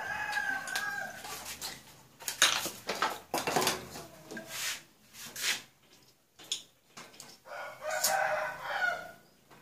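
A rooster crowing twice, once at the start and again about eight seconds in, each crow held for over a second. Between the crows come a few sharp knocks and clinks, the loudest about two and a half seconds in.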